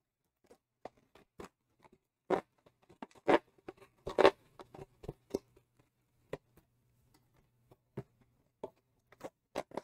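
Packaging being handled: scattered rustles and sharp clicks, loudest in a cluster about two to four and a half seconds in, over a faint low hum.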